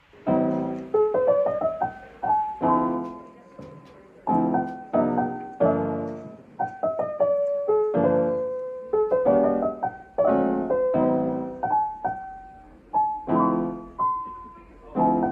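Solo piano music, a gentle melody over chords, each chord struck and left to fade.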